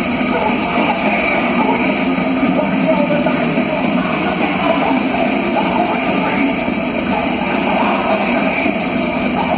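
Thrash metal band playing live in an arena, distorted electric guitars at full volume, recorded from within the crowd and thin in the bass.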